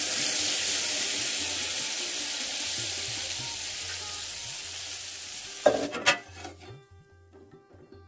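Water poured into a hot kadai of spiced potatoes and peas sizzles with a loud hiss that slowly fades. About six seconds in there are a few sharp knocks on the pan, and then the sizzling dies down.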